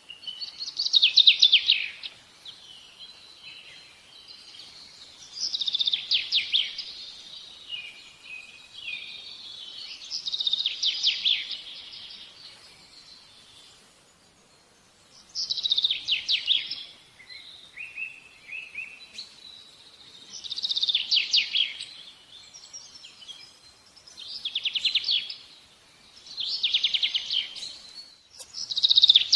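A songbird singing short, fast-trilled phrases that fall in pitch, each about a second long, repeated every few seconds.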